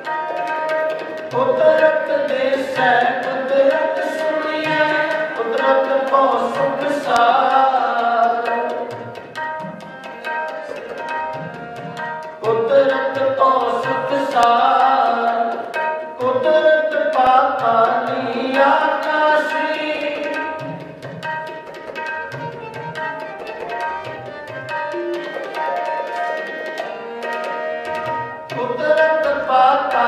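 Sikh kirtan: harmoniums sounding a sustained chord and melody while a tabla keeps a rhythm of sharp strokes, with male singing rising and falling over them.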